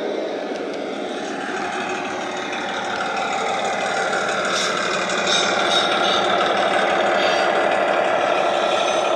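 DCC sound decoder in a model GWR parcel railcar playing a recorded German MAN Schienenbus railbus diesel engine through a small EM2 speaker, the engine running steadily under power. It grows louder about halfway through as the model comes past.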